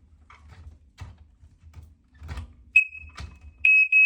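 Smoke alarm giving its high-pitched test beep: a short beep about three seconds in, then a longer one about a second later that breaks up as it stops. A few knocks and clicks come before it.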